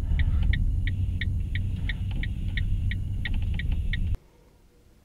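Low engine and road rumble heard from inside a vehicle's cab on a snowy road, with light regular ticks about two to three times a second. It cuts off abruptly about four seconds in.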